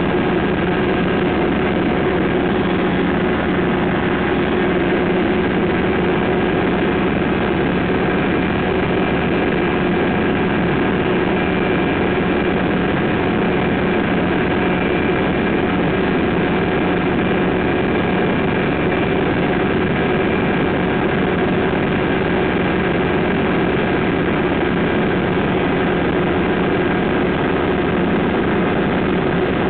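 Engine and propeller of a Pou-du-ciel (Flying Flea) ultralight running steadily in cruise flight, heard from inside the cockpit, with an unchanging pitch.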